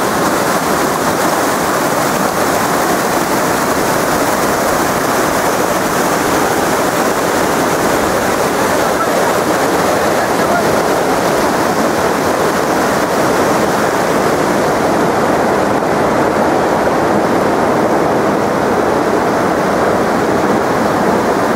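Shallow river rapids rushing over stones: a steady, loud rush of water.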